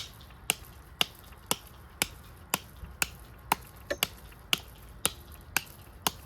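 A handmade 1095 high-carbon steel bushcraft knife chopping into an inch-thick piece of green wood. It strikes in a steady rhythm of about two sharp chops a second.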